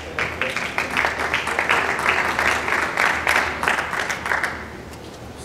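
Audience applauding, the dense clapping dying away about four and a half seconds in.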